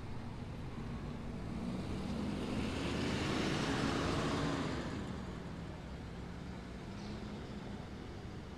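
A motor vehicle drives past. Its engine and road noise build to a peak about four seconds in, then the engine note drops in pitch as it goes by and fades away.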